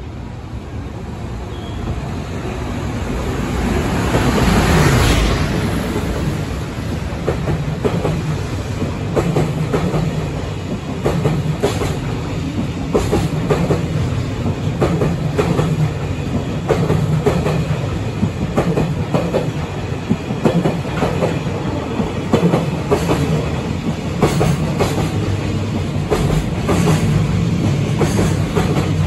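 JR Freight EF510 electric locomotive passing at speed, growing louder to a peak about five seconds in with a falling pitch as it goes by. A long freight train of container wagons and tank cars follows, rumbling past with steady clickety-clack of wheels over rail joints.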